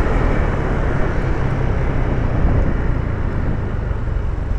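Honda Vario 160 single-cylinder scooter being ridden: a steady drone of engine and road with heavy wind rushing over the rider's microphone.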